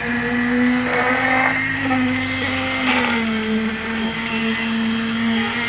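Handheld concrete poker vibrator running with a steady high hum while its shaft works the wet concrete in the formwork; the pitch sags a little about three seconds in as the load on it changes.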